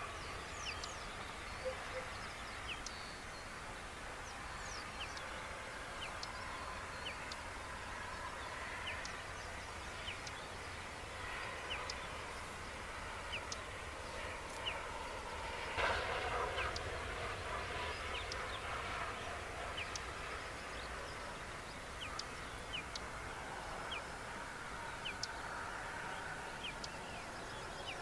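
Small birds giving many short, high, quick chirps scattered through a meadow soundscape, over a steady low rumble. A brief louder noisy sound comes about halfway through.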